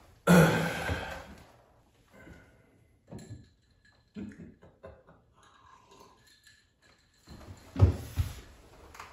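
Handling noises of small items being moved about on a wooden desk: a loud thump about a third of a second in that dies away over about a second, scattered small knocks and clicks, and two more heavy thumps near the end.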